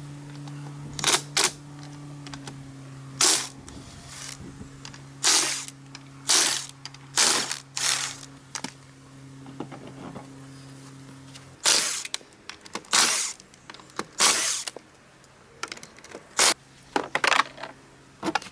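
Hand or power tools at work on an ATV wheel in about a dozen short, irregular bursts as the front wheel is taken off. A steady low hum runs underneath and stops about twelve seconds in.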